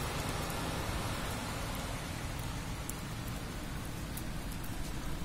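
Heavy rain from a brief thunderstorm downpour, a steady even hiss with a few sharp ticks of single drops striking close by.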